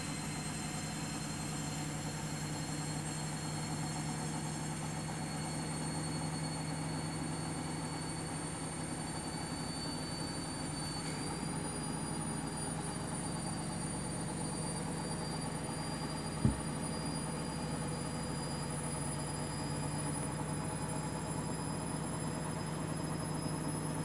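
Front-loading washing machine on its final spin with a half load: the drum spins steadily with a motor hum and a high whine that steps up slightly in pitch about halfway through. A single short knock comes a little after that.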